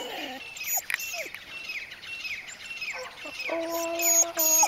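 A bird chirping in quick, repeated falling notes, then a single steady held tone starting about three and a half seconds in, the loudest sound here.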